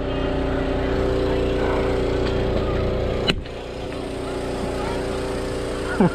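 A steady motor-like drone of several held tones. A sharp click a little past three seconds in is followed by the drone running on slightly quieter.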